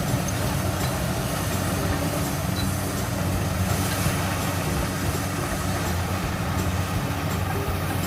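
Corn reaper (harvesting machine) running steadily: a constant engine drone under an even rush of mechanical noise.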